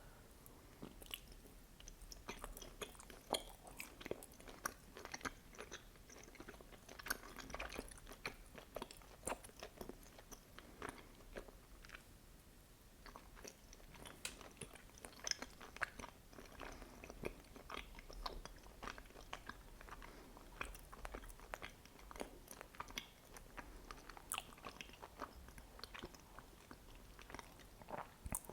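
Close-miked chewing of soft, sticky mochi with red bean paste: a steady run of small wet smacks and clicks.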